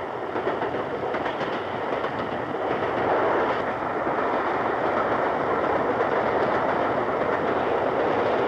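Steam-hauled express train running at speed: a steady rush of wheel and track noise, getting a little louder over the first few seconds and then holding level.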